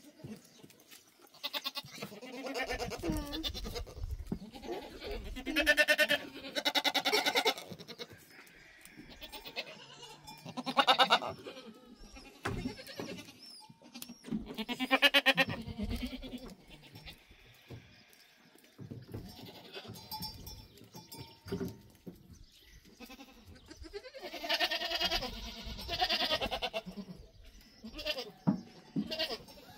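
Goats bleating repeatedly, a string of separate calls each a second or two long, some loud and some fainter.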